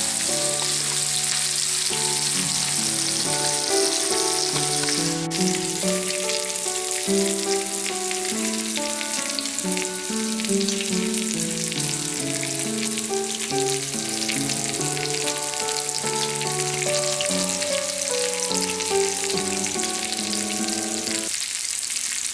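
Masala-coated lamb chops sizzling as they fry in hot oil in a pan. A melody plays over the sizzle and stops near the end.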